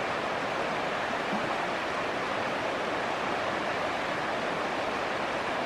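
Steady rush of a shallow river's current flowing over rocks.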